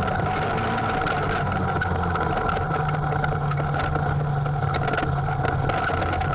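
Textron Havoc X UTV engine running steadily under way on a dirt trail, heard from on board. Its low drone shifts pitch about two and a half seconds in, with scattered light clicks and rattles throughout.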